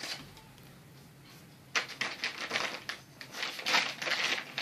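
Thin plastic bag rustling and crinkling in a quick run of short bursts, starting a couple of seconds in, as mangoes are handled inside it.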